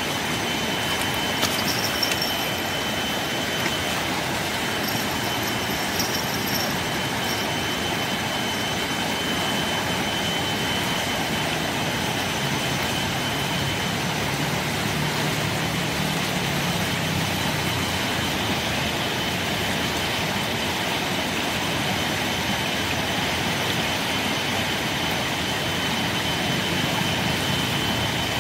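Steady rushing of a swollen, muddy river in flood, with a faint steady high tone held above it.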